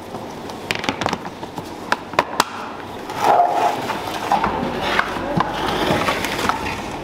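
Blue plastic storage bin's lid being handled and fitted onto the bin: a series of sharp hollow plastic clacks and knocks, with a short scraping clatter a little past the midpoint, over a steady background hiss.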